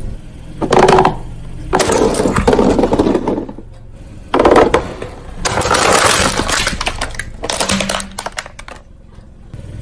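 Car tyre running over and crushing brittle plastic objects, a plastic child's chair among them: several separate bursts of loud cracking and crunching.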